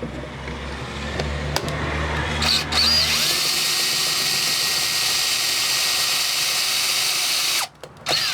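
Power drill with an 8 mm bit spotting through a garage door bolt's fixing holes into the door. It runs quieter for about three seconds, then loud and steady for about four seconds, stops suddenly near the end, and gives one short burst after.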